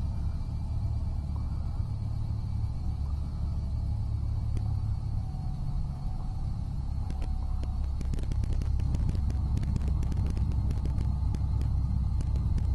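Cessna 172's engine and propeller running steadily, heard from inside the cockpit during the landing and rollout. From about two-thirds through, a run of rattling clicks is heard over the rumble.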